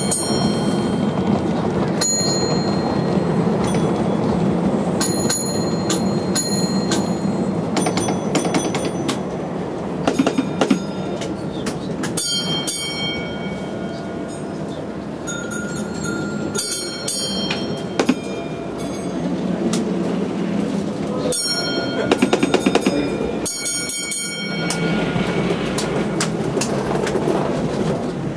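Model electric train running on the layout, its wheels clicking in quick runs over rail joints and points, over a steady murmur of crowd chatter.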